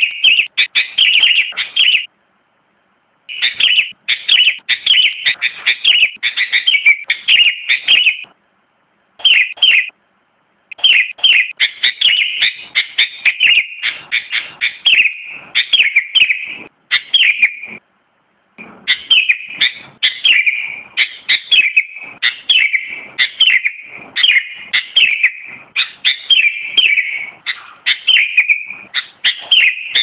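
Sooty-headed bulbul singing: long runs of quick, chirpy whistled notes, broken by a few short pauses.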